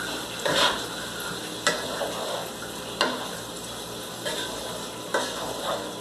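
Vegetables sizzling in a speckled nonstick skillet while a wooden spoon stirs and scrapes them, with several sharp knocks of the spoon against the pan about a second apart.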